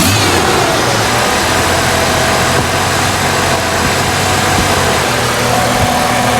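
1998 Jeep Cherokee XJ's 4.0-litre straight-six engine running at idle. The owner has been showing an idle that rises and falls, which he puts down to a failing throttle position sensor.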